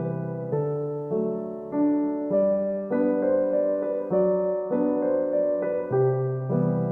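Background piano music: soft keyboard notes struck about once or twice a second, each fading before the next.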